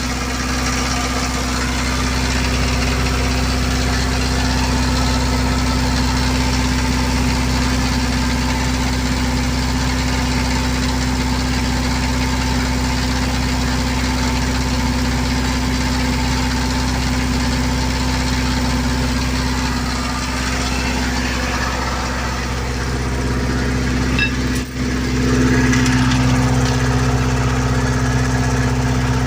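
Generator set engine running steadily on a test run. There is a brief dip about 25 seconds in, after which it runs slightly louder and deeper.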